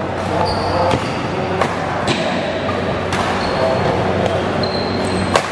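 Badminton rally: racket strikes on the shuttlecock as sharp cracks every half second to a second, the sharpest near the end, with short high squeaks of shoes on the court floor.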